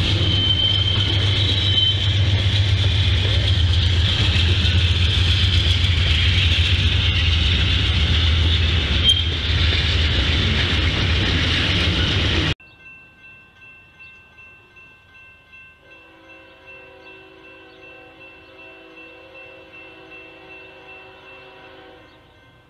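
An Amtrak passenger train led by diesel locomotives passes close under power, with engine rumble and wheel noise on the rails and a short high squeal in the first couple of seconds. About twelve seconds in, the sound cuts abruptly to a much fainter scene: the steady rhythmic ringing of a grade-crossing bell, with a steady multi-tone sound joining it in the last few seconds.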